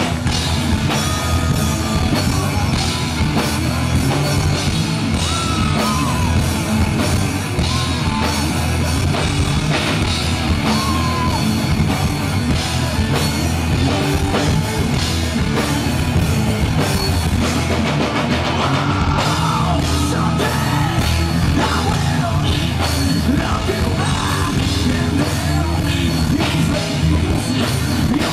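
Live rock band playing loud, heavy rock with electric bass and drum kit, and some sung vocal lines.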